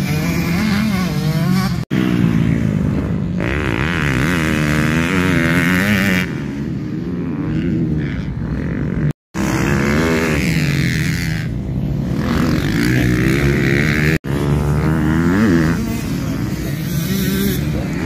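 Dirt bike engines revving up and down as the bikes ride around a motocross track, the pitch rising and falling through the gears. The sound breaks off briefly three times.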